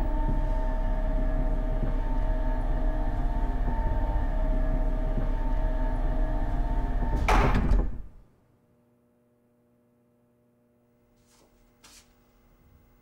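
Elevator machinery running with a loud, steady hum and deep rumble. It ends about eight seconds in with a short rushing sweep like a sliding door, and near silence follows with only a faint hum and a couple of faint clicks.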